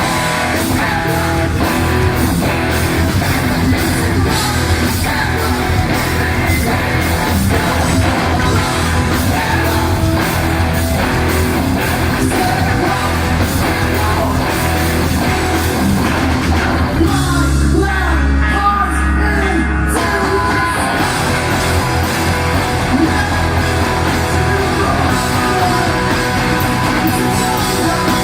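Live rock band playing with electric guitars, bass, drum kit and sung vocals. About two-thirds of the way in the band drops to a heavy held low note with the higher parts thinned out, then the full band comes back in.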